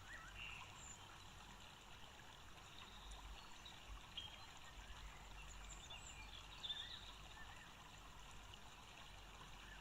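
Near silence: faint background hiss and low hum, with a few faint, short, high chirps.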